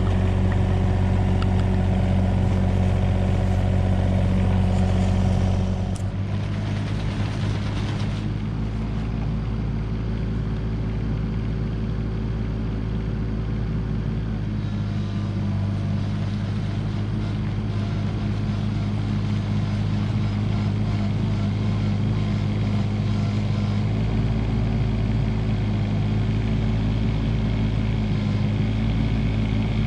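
Komatsu PC16 mini excavator's diesel engine running steadily under work. About six seconds in its note shifts and drops a little in level, with a short hiss lasting a couple of seconds.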